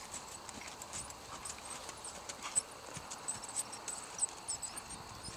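Hoofbeats of a Percheron-Paint gelding trotting under a rider on a soft dirt arena: a loose series of short thuds and clicks.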